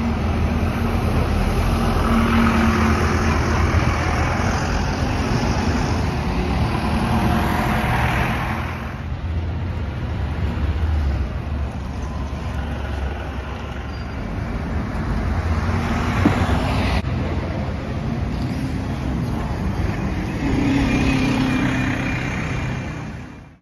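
Diesel buses running and moving along a city street, with traffic noise, in three separate passes that change abruptly about 9 and 17 seconds in. The first is a Volvo B9TL double-decker, then another double-decker, then a single-decker.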